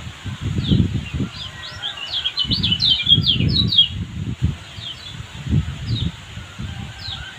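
A small songbird chirping: short, high notes that slide downward, spaced apart at first and then bunched into a quick run in the middle, over low rumbling noise.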